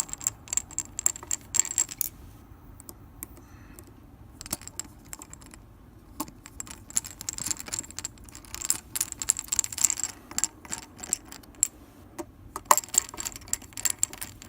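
A T8 Torx screwdriver driving small screws into a hard drive's metal mount: bursts of rapid light clicks and scrapes of the bit in the screw heads, pausing briefly about two seconds in and again near eleven seconds.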